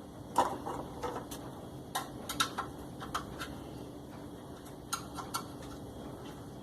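Scattered light clicks and knocks, about a dozen, the loudest about half a second in: the plastic gear parts of a washing machine's agitation mechanism being handled and taken apart.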